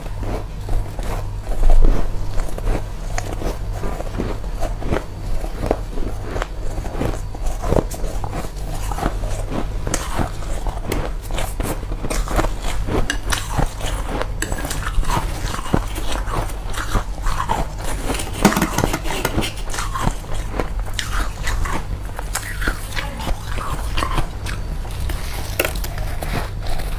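A person biting and chewing powdery freezer frost: many irregular crisp crunches, the loudest about two seconds in, over a steady low hum.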